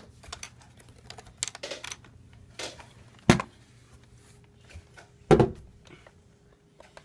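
Scattered light clicks and knocks, with two louder sharp knocks about three and five seconds in.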